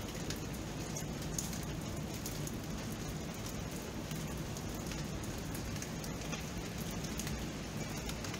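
Rain falling steadily, an even hiss sprinkled with small ticks of single drops.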